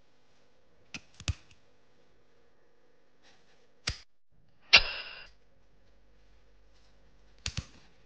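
A steel padlock being worked by hand with a key in it: a few light metallic clicks, then a sharper metal snap with a brief ring about halfway through, and a quick double click near the end.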